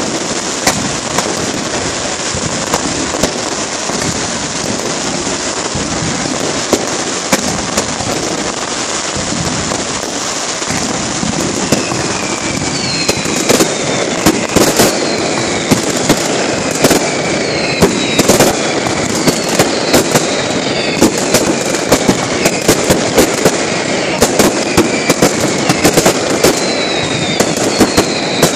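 Mascletà fireworks barrage: a dense, continuous crackle of firecrackers and aerial fireworks. From about halfway, loud sharp bangs come thicker and faster, with repeated whistles gliding down in pitch.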